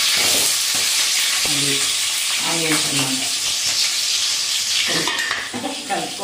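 Chopped onions sizzling in hot oil with the tempering in a steel kadai on a gas stove, a steady frying hiss. Near the end a spoon stirs and scrapes in the pan.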